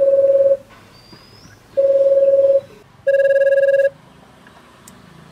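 Car stereo's incoming-call ringtone for a Bluetooth-paired phone: three steady single-pitched tones, each just under a second long.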